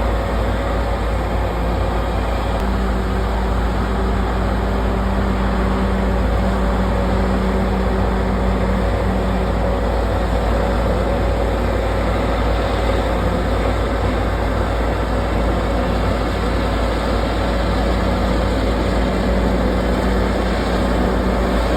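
Komatsu D68ESS bulldozer running steadily, a heavy diesel engine sound with a steady whine over it.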